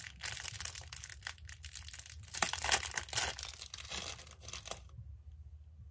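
Clear plastic bag of small purple rubber bands crinkling and crackling as it is handled, the small bands rustling inside; it stops a little before the end.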